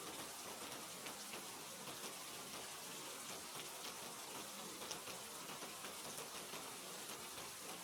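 Steady rain falling, a soft even hiss with scattered individual drops ticking on a surface.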